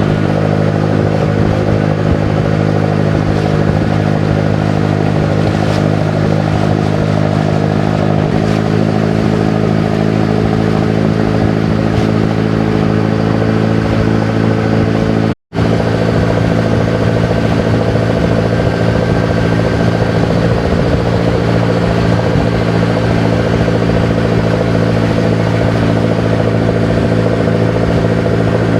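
Engine of a motorized bangka (Filipino outrigger canoe) running steadily at cruising speed, a constant loud drone. The sound cuts out for an instant about halfway through.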